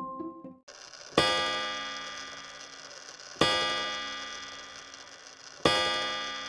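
A clock striking three times, about two seconds apart, each deep bong ringing out and fading slowly. A mallet-percussion jingle dies away just before the first strike.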